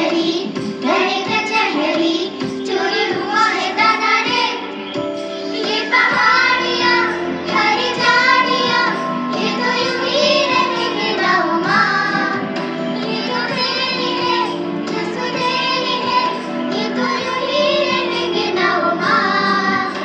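A child singing a song, with instrumental accompaniment.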